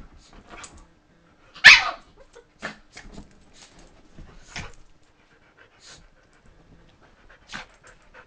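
Dogs play-fighting, with panting and short scuffling sounds, and one loud short bark about a second and a half in.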